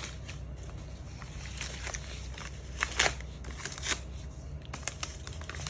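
Gift wrapping being handled and pulled open as a present is unwrapped, with a few short rustles and tears over a steady low hum.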